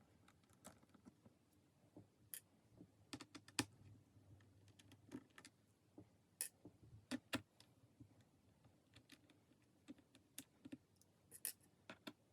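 Irregular small clicks and taps from hands working on a laptop's casing and parts, some sharper than others, with gaps of up to a second or two between them.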